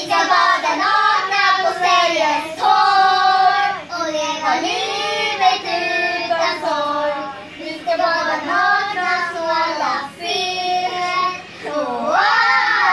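Several young girls singing together, children's voices holding long notes and gliding between them.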